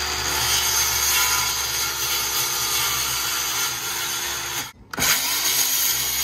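DeWalt cordless circular saw cutting about an inch off the end of a 2x4. The saw runs steadily through the wood, is let off about four and a half seconds in so its motor winds down for a moment, and is then spun up again to finish the cut.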